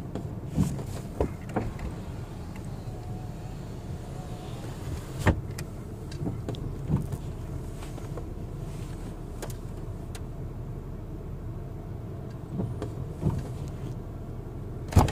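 Inside a stopped car: a steady low hum, with scattered clicks and knocks from handling, the sharpest about five seconds in. A faint wavering tone comes in for about two seconds a few seconds in.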